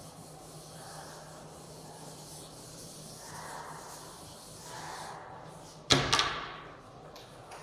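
A chalkboard being wiped with a felt duster: a few soft rubbing swishes, then two sharp knocks close together about six seconds in.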